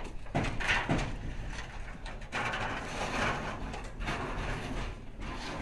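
Roofers working on aluminium roofing sheets: scattered, irregular knocks and scraping, with a stretch of rushing noise in the middle.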